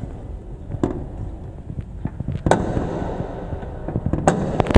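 Several sharp knocks and clicks at uneven intervals over a steady low rumble, the strongest about halfway through and near the end.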